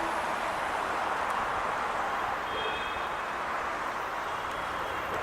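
Express train running past: a steady rush of wheels on rail. A faint high creak comes in briefly about two and a half seconds in.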